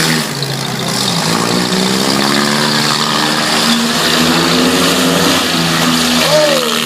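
Four-cylinder demolition derby car engines running and revving, the pitch rising about a second in, with a brief high squeal-like glide near the end.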